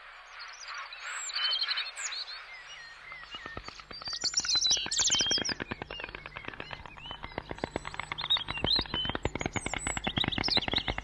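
Small birds chirping and twittering in quick, high, curving notes. About three seconds in, a fast, even rattle of clicks joins them and keeps going.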